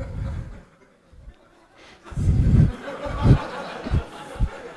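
Audience laughing and chuckling, starting about two seconds in after a short quiet pause.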